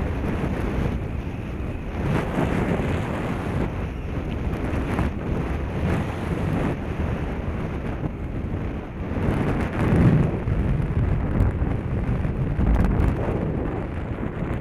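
Wind buffeting the microphone of a moving action camera: a steady low rumble of noise that swells in stronger gusts about two seconds in, around ten seconds in and again near the end.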